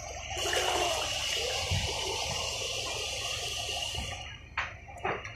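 Floodwater rushing and churning close to the microphone, starting abruptly and stopping after about four seconds, followed by a few short splashes near the end.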